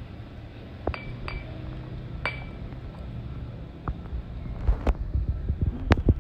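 A series of light clinks and taps of small hard objects, a few with a brief ringing note, coming faster and closer together in the last couple of seconds.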